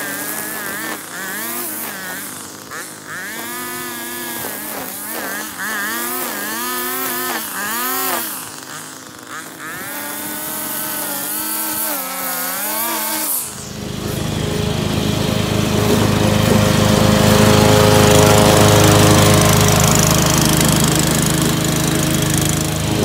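Gas string trimmer running, its engine pitch rising and falling again and again as it is throttled while cutting grass. About thirteen seconds in it gives way abruptly to a zero-turn riding mower's engine running steadily and louder.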